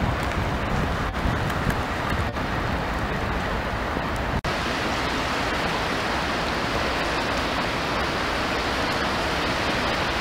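Steady rush of a fast-flowing river, with some wind on the microphone. The sound drops out for an instant about four and a half seconds in.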